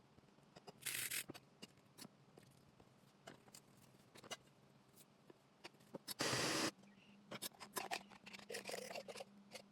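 Kitchen handling sounds during food preparation: scattered light clicks and taps, with two short, loud scraping or rustling sounds, one about a second in and one about six seconds in.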